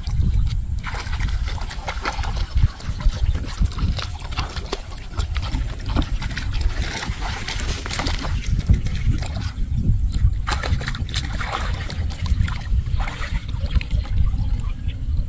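Water sloshing and splashing as a person wading waist-deep in a muddy pond gropes with her hands in the water and mud for fish. There are irregular small splashes over a steady low rumble.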